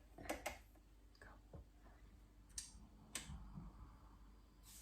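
A handful of faint, separate clicks and taps from handling a food processor's lid and switch. The motor has not started.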